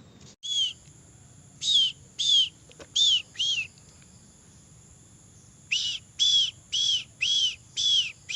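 A bird calling: short, identical whistled notes that rise and fall in pitch, four spaced out in the first half, then a steady run of about two a second from just past the middle.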